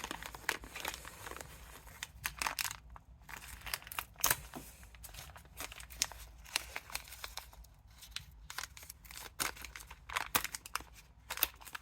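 Plastic packaging of self-drilling screws crinkling and rustling as it is handled, in irregular sharp crackles.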